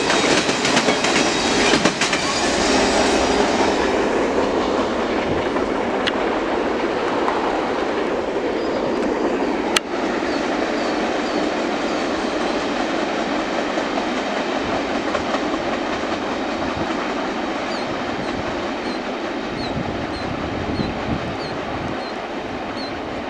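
The last cars of a CN mixed freight train roll past, their wheels clicking over the rail joints. The rumble of the departing train then fades slowly into the distance.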